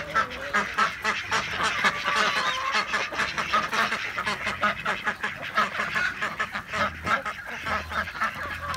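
A flock of ducks quacking at feeding time, many overlapping calls in quick succession.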